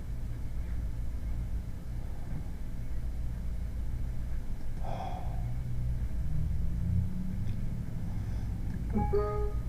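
Steady low hum, with a short faint sound about halfway through and a brief pitched sound near the end.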